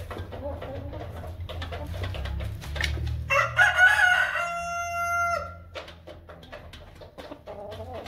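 A rooster crows once, starting about three seconds in and lasting over two seconds, ending on a long held note. Around it, a flock of Light Brahma chickens clucks, with short sharp clicks.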